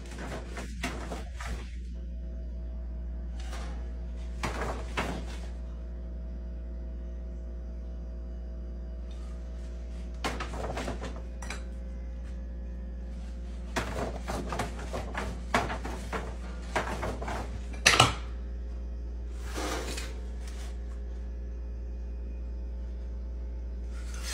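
An empty dog food bag rustling and crinkling in irregular bursts as an iguana pushes its head into it, with one sharp, loud crackle about eighteen seconds in. A steady low hum runs underneath.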